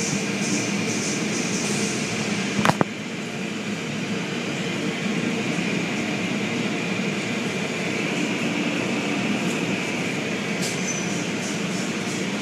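Automatic car wash heard from inside the car: cloth brush strips swishing and slapping across the glass in a quick rhythm over the steady running noise of the wash machinery. There is one sharp knock about two and a half seconds in.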